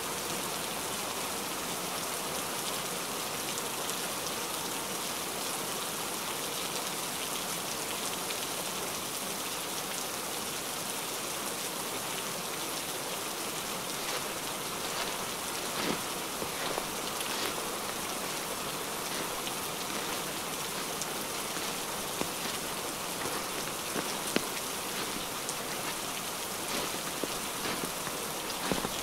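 Heavy rain falling steadily, with a few sharper, louder drop hits standing out now and then, mostly in the second half.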